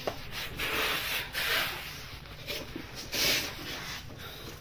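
Rubbing and rustling noises in a few short bursts, about one second in and again about three seconds in, over a steady low hum.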